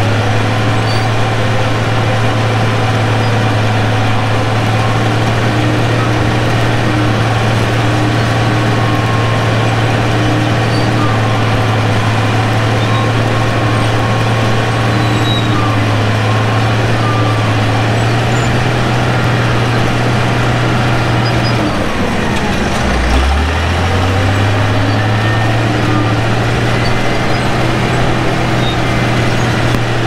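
Crawler bulldozer's diesel engine running steadily at working revs while dozing clay. About three-quarters of the way through, its pitch sags sharply and climbs back to speed within a couple of seconds.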